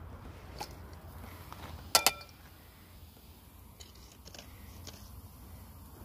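A metal skimmer knocks twice in quick succession against the rim of a bucket with a short metallic ring, shaking off dross skimmed from molten aluminium. Fainter clinks of the skimmer come before and after, over a low steady hum.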